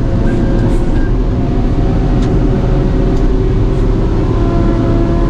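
Engine of a heavy timber-cutting logging machine running steadily under load as it strains against a big tree that will not yet move. It makes an even drone with a held hum in it.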